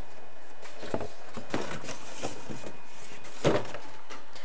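Laser-cut cardboard pieces being popped out of the sheet and handled on the laser bed: scattered light taps and rustles, with one louder knock about three and a half seconds in.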